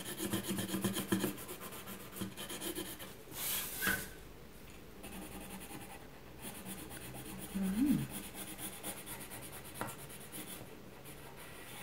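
Colouring pencil scratching across paper in quick back-and-forth strokes as a rainbow band is coloured in. About four seconds in there is a brief louder swish as the sheet of paper is turned on the table, and the scratching goes on more softly afterwards.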